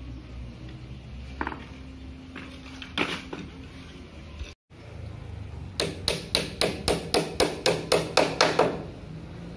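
A hammer driving small nails into a wooden frame: a fast, even run of about fourteen strikes, some five a second, in the second half, after a couple of isolated knocks earlier.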